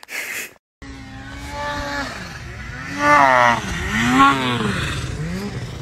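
Snowmobile engine revving, its pitch swelling up and down again and again as the sled ploughs through deep powder. It comes in about a second in.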